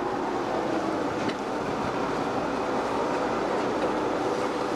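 Lxd2 narrow-gauge diesel locomotive running steadily with the train under way, its engine drone mixed with running noise from the wheels and track.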